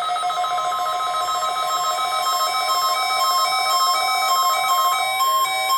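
NOAA Weather Radio weekly test signal: a steady high electronic tone, with other electronic tones stepping up and down in a repeating tune-like pattern over it.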